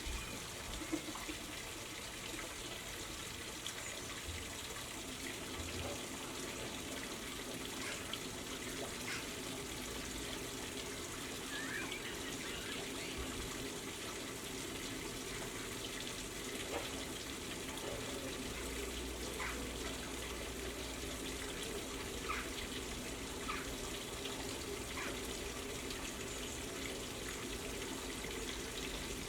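Steady hiss-like outdoor background noise, with a few faint, short chirps from small garden birds now and then.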